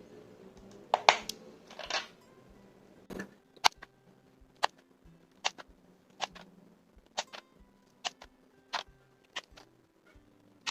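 Sharp plastic clicks, a little more than one a second, as parts are snapped into place while an Akko 5075S mechanical keyboard is assembled. Two longer rustling scrapes come first, near the start.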